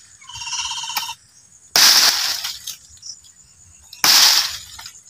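Two loud, rough crashing bursts about two seconds apart, each lasting under a second, after a short wavering pitched tone near the start.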